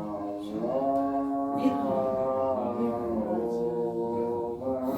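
A child's voice reciting Arabic Quranic text from a Quran-reading book in a slow chanted melody. She holds long, drawn-out vowels and slides to a new pitch a few times.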